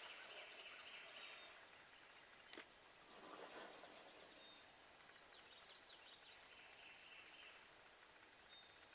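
Faint songbird chirps scattered over a quiet background, with a single sharp click about two and a half seconds in.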